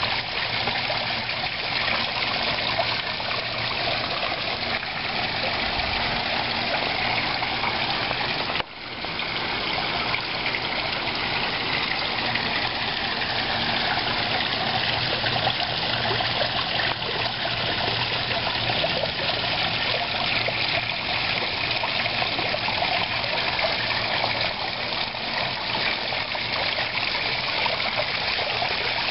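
Small rock waterfall splashing steadily into a koi pond, with a low steady hum underneath. The sound dips briefly about nine seconds in.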